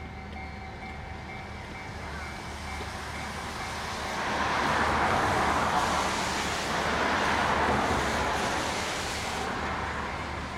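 A Keikyu electric train passes through a level crossing: the rush and rumble of its wheels swells about four seconds in, holds for several seconds and then fades. The crossing's warning bell rings steadily at the start and is then drowned by the train.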